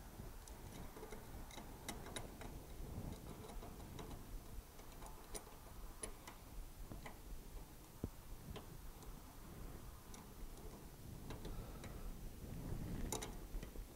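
Faint, irregular clicks and taps of an AN oil cooler line fitting being handled and tightened onto the oil cooler, over low room tone.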